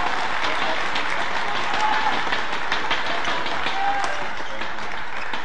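Arena crowd cheering and clapping steadily during a badminton rally, with the sharp taps of rackets striking the shuttlecock.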